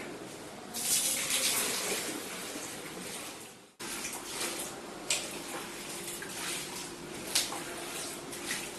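Floodwater being bailed by hand: water poured from a plastic bucket rushes out for about three seconds and then cuts off abruptly, followed by quieter splashes and a few sharp knocks as water is scooped from the floor into a bucket.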